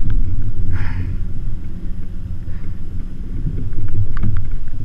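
Low rumble on a GoPro camera's microphone, from wind and handling while a big fish is fought from a kayak, with a short hiss about a second in and a few light clicks near the end.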